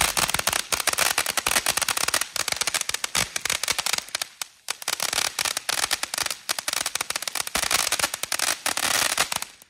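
Ground firework fountain spraying sparks with a dense, rapid crackle of popping stars. The crackle thins briefly about four and a half seconds in, picks up again, and cuts off suddenly at the end.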